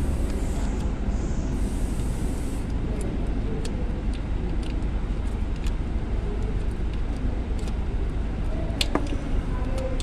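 Steady low rumble of an idling vehicle engine, with scattered light clicks and one sharper tap about nine seconds in.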